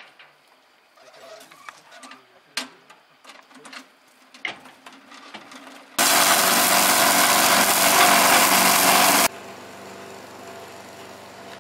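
Scattered knocks and clatter, then the small petrol engine of a walk-behind wheeled brush cutter running loud and steady at working speed for about three seconds. It drops abruptly to a much quieter steady engine hum.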